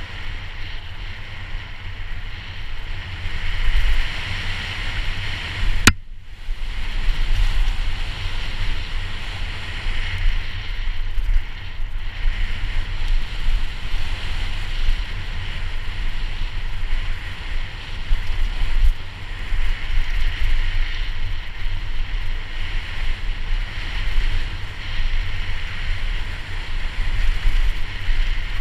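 Wind buffeting the microphone of a helmet camera on a downhill mountain bike at speed: a steady, loud low rumble with a hiss over it. A sharp click comes about six seconds in, followed by a brief dip.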